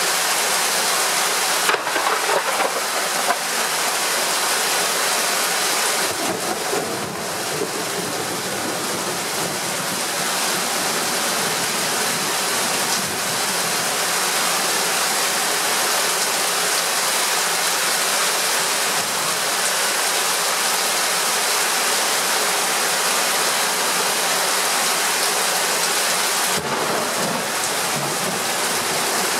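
Heavy thunderstorm rain pouring down steadily, an even dense hiss, with a few brief sharp knocks about two to three seconds in.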